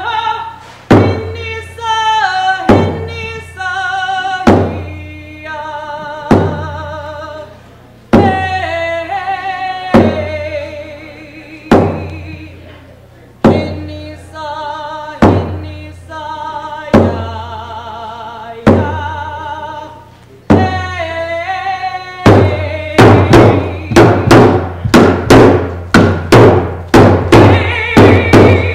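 A woman sings a traditional Tlingit song solo, beating a hand-held frame drum with a padded beater: one strong stroke about every two seconds under the melody. In the last several seconds the drumming quickens to a rapid steady beat, about two or three strokes a second.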